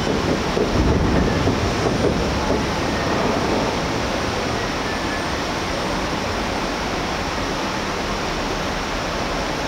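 Fireworks finale: a dense, continuous mass of overlapping bursts and crackling, heaviest in the first two seconds and then settling into a steady rushing noise.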